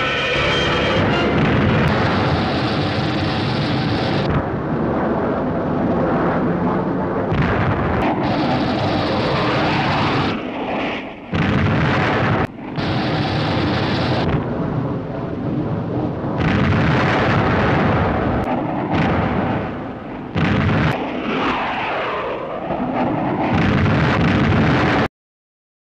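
Old black-and-white film sound effects of jet fighters flying past and repeated explosions throwing up snow and ice, with sudden changes at the shot edits. The sound stops abruptly near the end.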